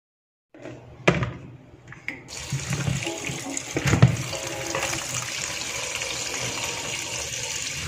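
Kitchen tap running onto freshly blanched Japanese papaya leaves in a plastic colander in a stainless steel sink, a steady splashing that starts about two seconds in. Before it a sharp clack about a second in, and a knock about four seconds in.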